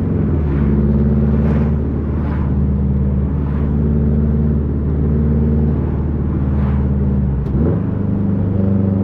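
2005 Subaru Impreza WRX STI's turbocharged flat-four running steadily through a Tomei Expreme Ti titanium exhaust with a catless downpipe, a low, even engine note. Near the end the pitch briefly dips and then settles a little higher.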